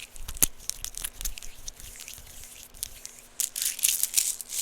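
Small plastic fidget toys handled close to the microphone: a run of sharp clicks and crinkly rustling, thickest a little past halfway.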